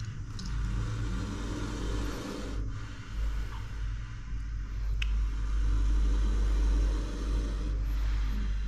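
A steady low rumble, with a single sharp click about five seconds in.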